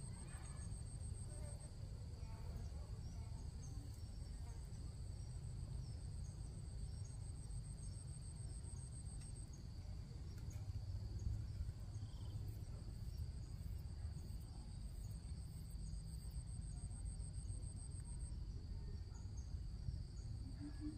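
Insects trilling: a continuous high buzz, with a higher pulsing trill that stops and starts several times, over a faint low rumble.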